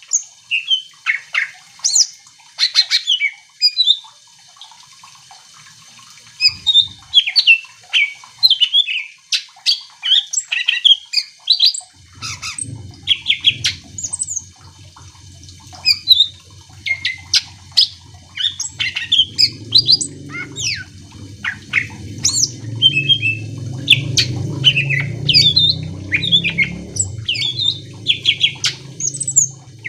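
Cucak ijo (green leafbird) singing in full song: a rapid, unbroken string of sharp, high chirps and whistled notes sliding up and down in pitch. A low rumble comes in underneath about 12 seconds in and grows louder in the second half.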